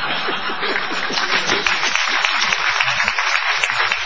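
Studio audience applauding, with laughter mixed in over about the first two seconds, then clapping alone.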